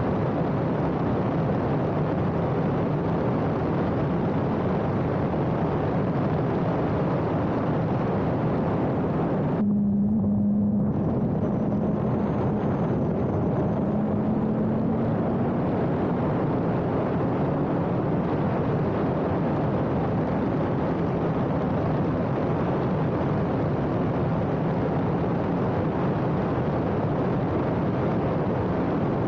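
Radical race car running at speed, heard from the onboard microphone under heavy wind rush. About ten seconds in the rush drops away for a second and the engine note comes through strongly, then climbs slowly in pitch as the car pulls.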